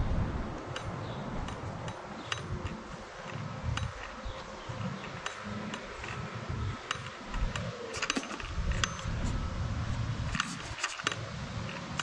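Low, gusty rumble of wind on the microphone, with scattered light clicks and a faint steady hum.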